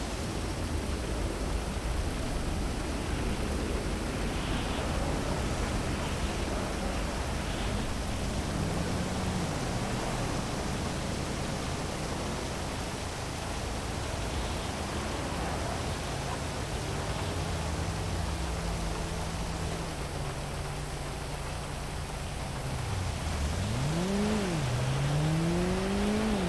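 Heavy rain falling over a city: a steady dense hiss. A vehicle engine hums under it in the second half, and near the end its pitch dips and rises twice.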